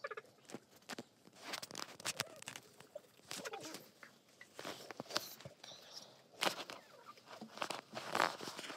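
Several chickens pecking at wet mash in a red plastic feeder: a fast, irregular run of sharp beak taps and clicks on the plastic, with bursts loudest about six and a half and eight seconds in.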